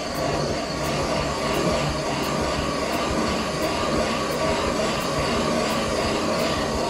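Valve seat cutting machine running its spindle and cutter into an intake valve seat of a Chrysler 318 cylinder head. It is a steady grinding whir that starts suddenly and holds level.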